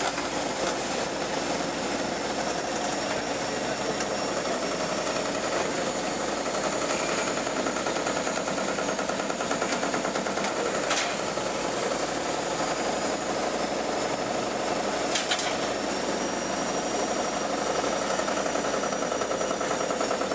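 JCB JS210 excavator's diesel engine running steadily under load while its hydraulics work a pincer demolition attachment, with two sharp knocks a few seconds apart.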